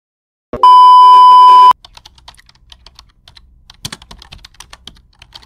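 A loud, steady censor-style bleep lasting about a second, then rapid keyboard typing clicks.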